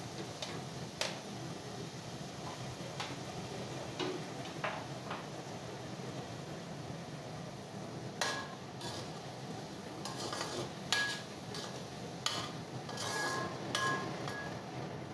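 A metal spoon stirring okra masala in a cooking pan, with scattered taps against the pan. In the second half come a run of louder ringing metal clinks, over a steady low hiss.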